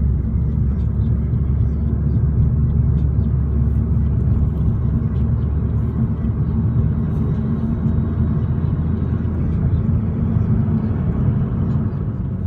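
Steady low rumble and hum of a running vehicle, even throughout.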